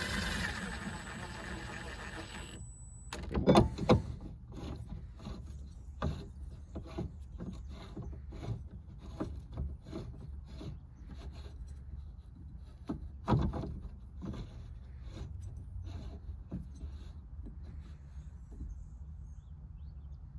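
Power drill running steadily and cutting off about two and a half seconds in, then scattered knocks and clunks, the loudest a pair a few seconds in and another near the middle.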